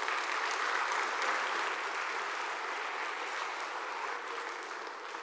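Audience applauding, loudest in the first couple of seconds and slowly dying down toward the end.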